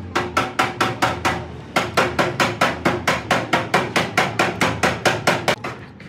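Rapid hammering on metal, about four ringing blows a second, with one brief pause about a second and a half in, stopping shortly before the end.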